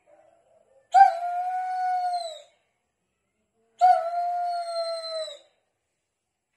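A dog howling in distress, from a dog poisoned by a toad: two long, steady cries of about a second and a half each, the first about a second in and the second about four seconds in, each sagging a little in pitch as it ends.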